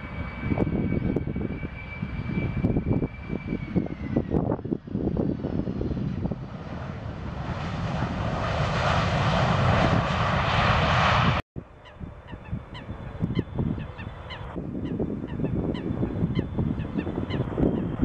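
Boeing 737 airliner jet engines: a steady whine that drops in pitch about four seconds in, then a roar that builds over several seconds as the jet rolls on the runway, ending in an abrupt cut. After the cut a bird calls over and over in short paired notes, over the rising rumble of a Boeing 777's engines at the start of its takeoff run.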